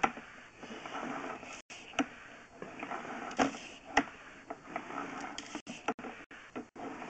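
Sewer-scope push cable being fed through a sewer line by hand: irregular clicks and knocks over a rustling, scraping noise, broken by a few brief gaps.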